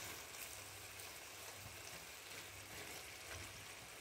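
Faint, steady sizzling of a tripe and potato curry simmering on very low heat in a stainless steel pot.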